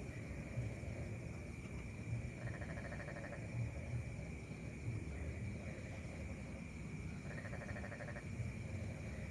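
Night pond ambience: a steady high insect drone with two pulsed frog calls, each about a second long, about two and a half and seven and a half seconds in, over an irregular low rumble.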